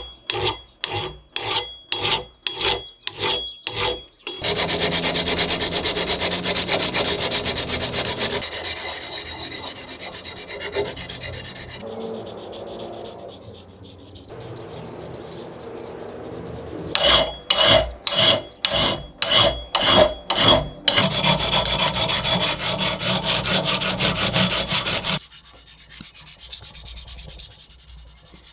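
Hand file rasping across an old iron axe head, in runs of strokes about two a second with stretches of steadier continuous rubbing between them.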